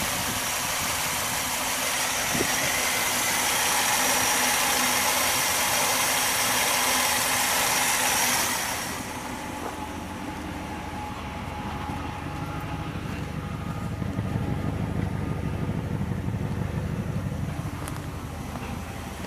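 A 1964 Plymouth Valiant engine idling steadily and cleanly at roughly 700–800 rpm after long storage. Close over the open engine bay it comes with a bright hiss. About nine seconds in the sound turns duller, and a deeper, lower rumble rises after that.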